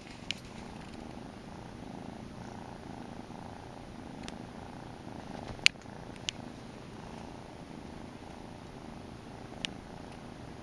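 Grey domestic shorthair kitten purring steadily close to the microphone, with a few sharp clicks over the purr, the loudest about halfway through.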